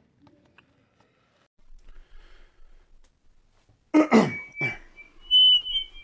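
A man clears his throat twice, harshly, about four seconds in. A short, thin, high wavering tone follows.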